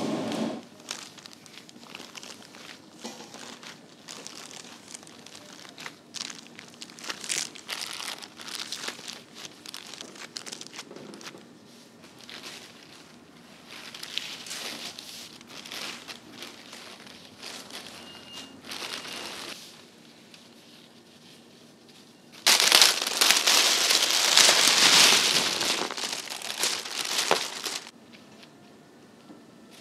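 Plastic bags and sheeting crinkling and rustling as they are handled, in scattered crackles, then a louder continuous rustle for about five seconds near the end.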